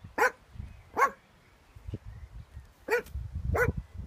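Yorkshire terrier barking at sheep: four short, sharp barks, spaced irregularly a second or two apart.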